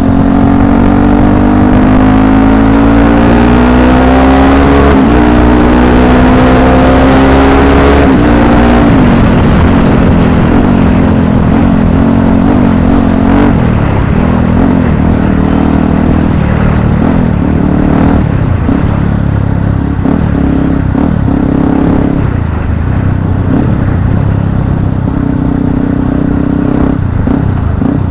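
Yamaha WR155R's single-cylinder engine running while riding, heard through an action camera's built-in microphone. The revs climb steadily for about eight seconds and drop sharply. After that they rise and fall with the throttle.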